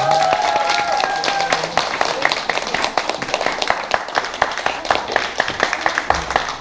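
Audience applauding, with dense clapping throughout and high cheering whoops over it in the first second or so.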